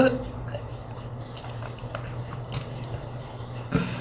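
A person burping once right at the start, then a few faint mouth clicks, and a short throaty sound near the end.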